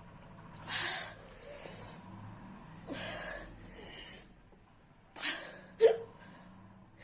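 A woman breathing hard through her mouth, with hissing in-and-out breaths from the burn of raw green chillies. Near the end come two short, sharp hiccups; the second is the loudest.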